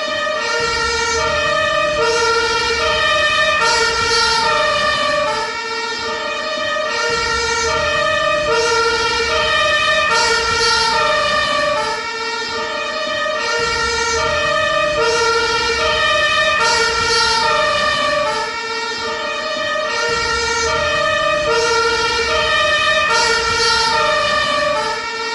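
Ambulance two-tone siren sounding continuously, switching between a high and a low tone about every two-thirds of a second, over a low vehicle rumble.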